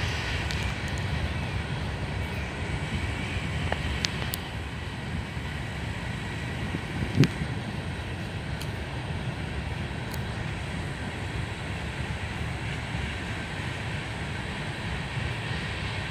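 Freight train cars rolling past with a steady low rumble of wheels on rail, a single sharp thump about seven seconds in, and a few faint clicks.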